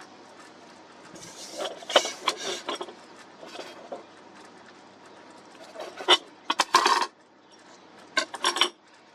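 Hard objects being handled, clattering and clinking in four short bursts of quick clicks and rattles.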